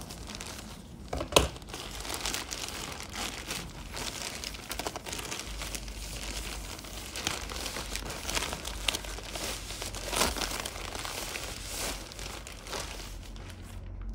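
A black plastic mailing satchel is cut open with scissors and crinkled as the paper-wrapped parcel inside is pulled out. The crackling goes on throughout, with a few sharp, louder crackles, the loudest about a second in.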